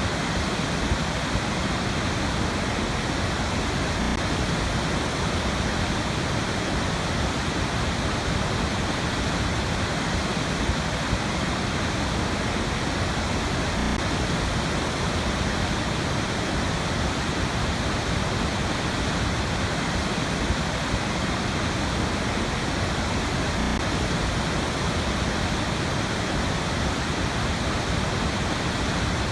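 Waterfall on a river, water pouring in a steady, even rush that never changes.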